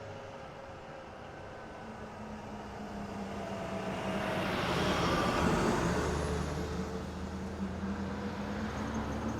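A car driving past: engine and tyre noise swell to a peak about five seconds in and then fade away, the engine's pitch dropping slightly as it goes by.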